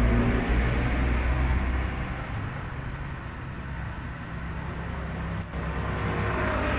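Steady low engine rumble of a motor vehicle running, easing off a little in the middle and growing again near the end.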